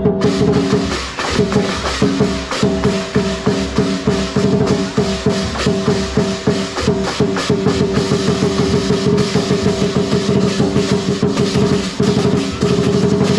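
Lion dance percussion: a fast, dense run of drum strokes with cymbals over a steady ringing pitch. It breaks off briefly about twelve seconds in and starts again at once.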